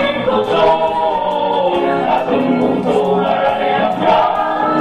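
Music with a group of voices singing together in a choir-like, hymn-style song.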